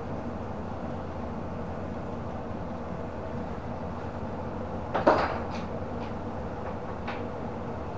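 A single sharp clack about five seconds in, then a few lighter clicks, as a part or tool knocks against the electric scooter's rear frame during work on its rear suspension. A steady low hum runs underneath.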